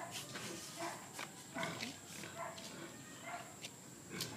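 Short animal calls, one about every half second, over a steady high whine. Near the end comes a sharp splash as water from a dipper hits the pig carcass.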